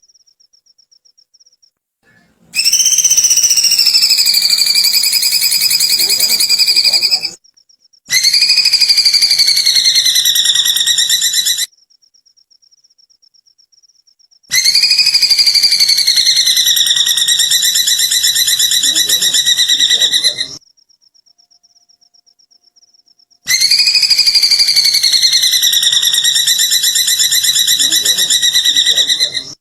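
Looped songbird recording of the "kikikan kunti" call used to train cage birds: four long, high, quavering trilled whistles of several seconds each. Each rises at the start, then falls and levels off, and starts and stops abruptly. Between them a faint, rapid high chirping pulse goes on.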